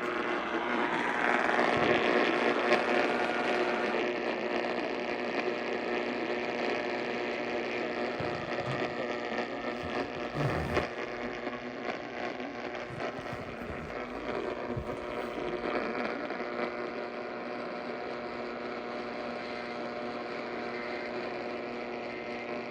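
A steady electrical hum over hiss, with a few faint low knocks near the middle.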